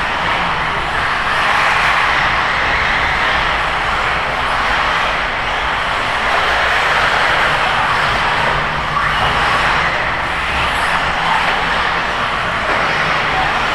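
Several 1/8-scale RC buggies racing at once, a steady, loud din of their motors.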